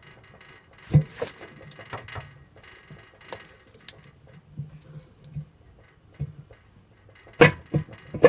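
Honda S2000 AP2 transmission case halves, both bare cast aluminium, clinking and scraping against each other as the housing is wiggled into line with its dowel pins. Sharp metal clunks come about a second in and again near the end, where the housing drops into place.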